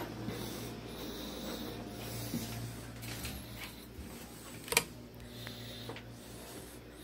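Low steady room hum with faint rustling, a few soft ticks and one sharp click near the end.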